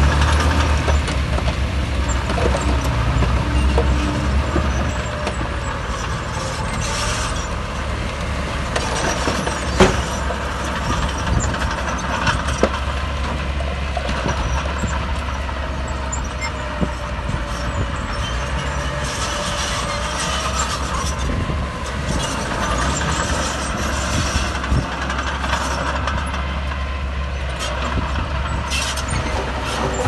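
Heavy diesel earthmoving machinery running with a steady deep rumble, with a single sharp knock about ten seconds in.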